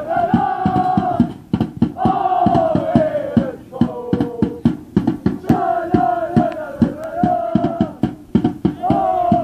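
A small group of football supporters chanting a song in unison, in phrases with short breaks, over a drum beating a fast, steady rhythm.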